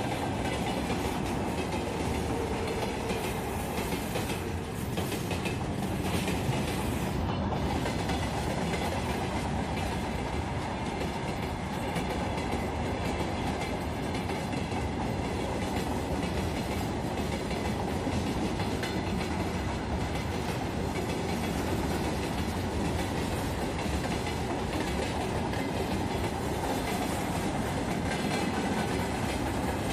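Freight train wagons rolling past at speed close by: a steady, unbroken noise of steel wheels running on the rails.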